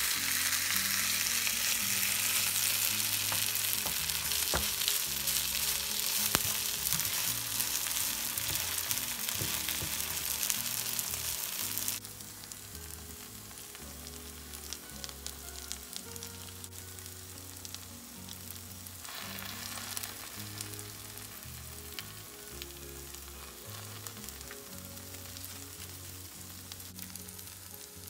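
Shredded sweet potato frying in oil in a rectangular pan: a steady sizzle that drops suddenly to a quieter sizzle about twelve seconds in.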